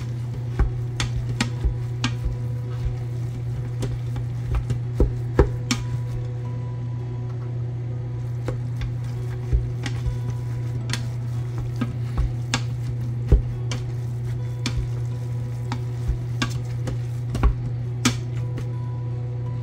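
Meat masher breaking up ground beef in a stainless steel Instant Pot insert: irregular scraping, clicks and knocks against the pot, with a light sizzle of the meat browning on the sauté heat. A steady low hum runs underneath.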